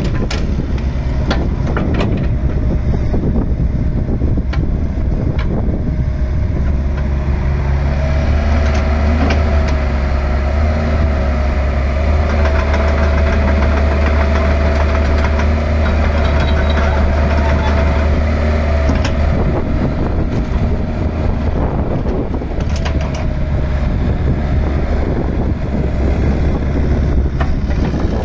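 Kubota KX161-3 midi excavator's diesel engine running steadily while the machine works its boom, arm and swing. A whine that wavers in pitch comes in about a third of the way through and fades out past the middle, then returns briefly later.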